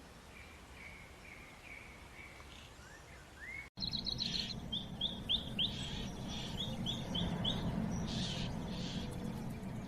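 Birds calling outdoors: faint short calls at first, then, after an abrupt cut about four seconds in, a louder run of quick, short chirps repeated a few times a second over a low rumble of wind or surf.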